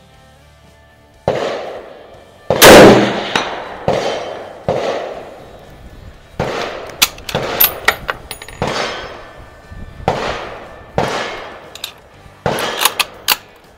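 Gunfire: a custom Mosin-Nagant bolt-action rifle firing one very loud shot with an echoing tail about two and a half seconds in. Around it are a dozen or so other sharp gunshot cracks from other shooters on the range, some in quick runs near the middle and the end.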